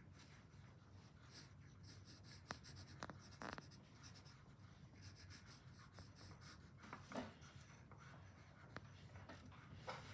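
Faint scratching of a graphite pencil on paper as short strokes are drawn one after another.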